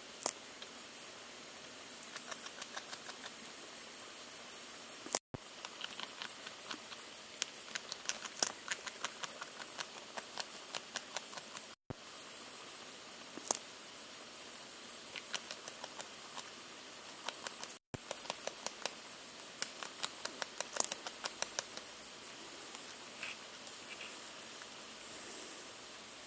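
Irregular wet clicks and crunches from a Eurasian beaver chewing water plants, over steady, fast-pulsing high chirping of insects. The sound cuts out briefly three times, at about 5, 12 and 18 seconds in.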